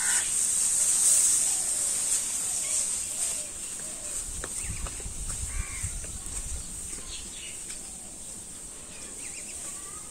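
Crows cawing a few times over a steady high-pitched insect drone, with a rustle of dry rice straw, loudest in the first few seconds, as a bundle of straw is carried.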